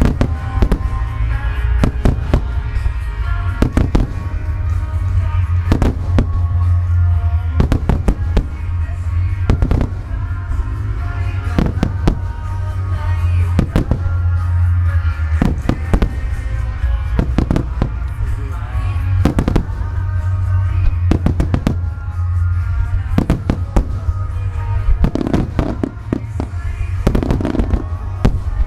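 Aerial fireworks shells bursting in quick, irregular succession, about one or two sharp reports a second, over music played alongside the display.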